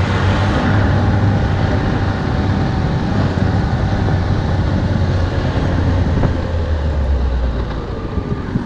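Ski-Doo Skandic 900 ACE snowmobile's three-cylinder four-stroke engine running at a steady speed while riding, its pitch easing down in the last couple of seconds as it slows.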